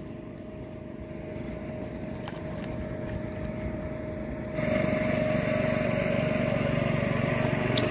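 A motor engine running steadily with a droning hum, stepping up in loudness about four and a half seconds in.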